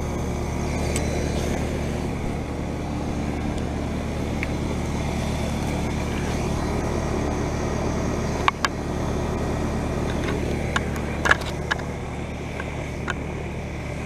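Steady low hum of a heat pump outdoor unit running, its compressor and fan, loud enough to cover the unit beside it that is in defrost. A few sharp knocks come about eight and a half and eleven seconds in.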